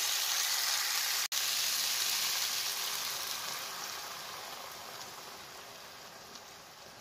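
Sautéed tomatoes, onion and garlic sizzling in a hot nonstick frying pan as a little water is poured in. The sizzle dies down steadily as the water cools the pan.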